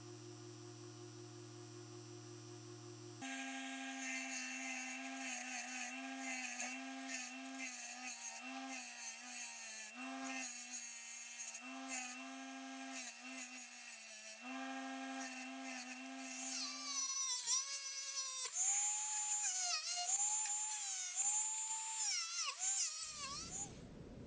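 A bench-mounted wire wheel spins with a steady motor whine, its pitch wavering and dipping as the rusty steel strap of the bush axe is pressed against it to strip the rust. From about two-thirds of the way through, a higher whine bends up and down with a scratchy hiss above it, and the sound stops shortly before the end.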